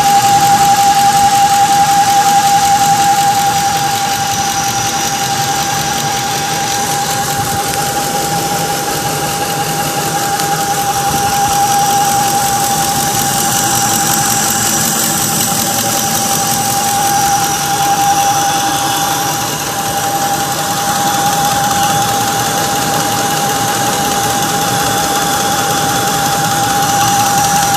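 2004 Ford F-150 engine running steadily with a constant high-pitched whine on top of the engine noise, which the owner suspects comes from the water pump or the power steering pump.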